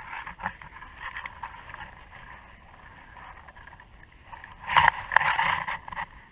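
Shallow water lapping and sloshing around a large zander held by hand at the surface, with a louder burst of splashing about five seconds in.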